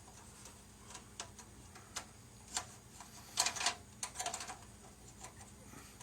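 Scattered light clicks and taps of a 3D-printed resin rear bumper being handled and pressed against a plastic model car body, with a quick cluster of louder clicks a little past the middle.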